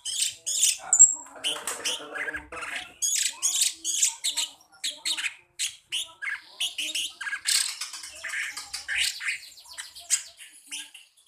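Cucak cungkok songbird singing a fast, shrill, chattering song of rapid high chirps and trills, with short breaks between phrases.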